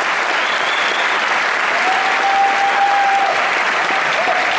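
Auditorium audience applauding steadily, a dense sustained clapping from many hands.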